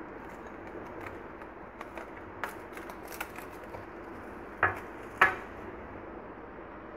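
Plastic cling film crinkling and crackling as it is peeled off a glass bowl, in scattered small clicks, with two louder sharp crackles about four and a half and five seconds in.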